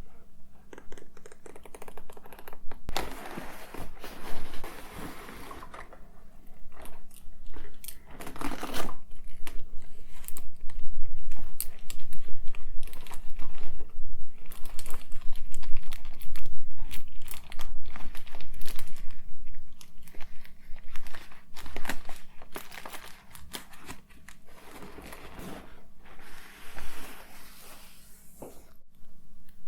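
Close-miked crinkling and rustling of hands handling packaging and small items, with scattered clicks and taps.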